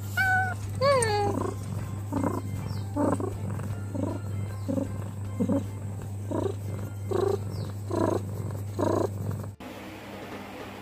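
American Curl cat purring in short, regular pulses, about two a second, while being stroked, after two short falling meows at the start. The sound cuts off sharply about nine and a half seconds in.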